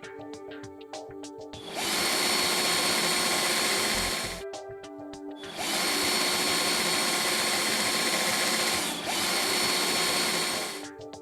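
Electric drill running in three bursts of a few seconds each, the second and third separated by only a brief stop, with a steady high whine over the noise of the cut. Background music plays in the gaps.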